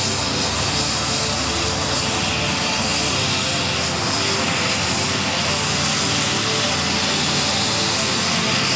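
ADAC rescue helicopter running on the ground, a steady turbine whine over the rotor noise, unchanging in level.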